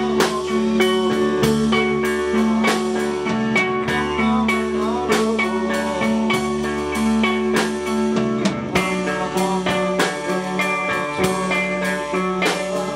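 Live rock band playing: electric guitars and bass over a steady drum beat.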